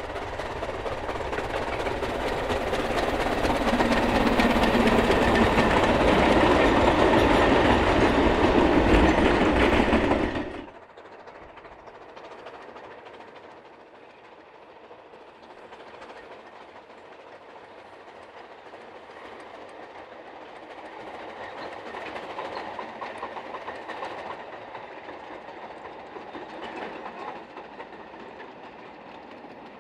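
Narrow-gauge steam locomotive working a train of goods wagons, growing louder as it draws near, then cut off abruptly about a third of the way in. After that, a quieter, more distant train of wagons rolls past, swelling a little near the end.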